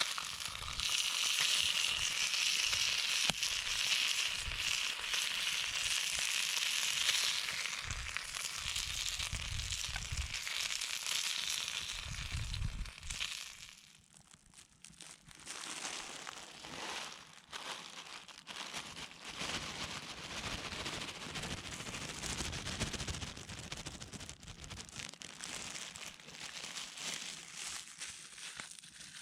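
Wood fire crackling and popping, with wind rumbling on the microphone through the first half. After about 14 seconds the hiss drops away, leaving quieter, scattered crackles.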